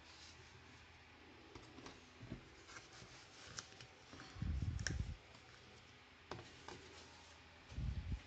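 Small handling noises on a tabletop: scattered light clicks and taps as metal watercolour paint tubes are picked through, with two dull bumps, one about halfway and one near the end.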